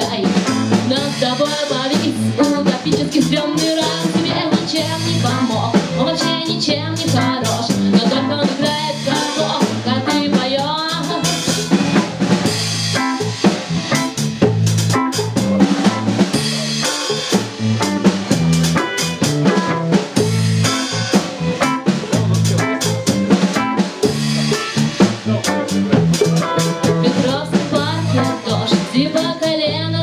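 Live band playing a song: electric bass, keyboard and a drum kit with snare and rimshot hits, with a woman singing over it.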